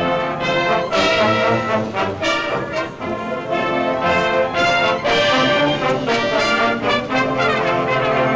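Marching band playing a march: the brass carries the tune over steady drum strokes.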